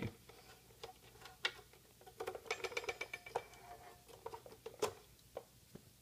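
Faint scattered clicks and ticks of a plastic camera bird feeder being handled while the screw holding its plastic perch is undone and the perch is taken off, with a run of quick ticks a couple of seconds in.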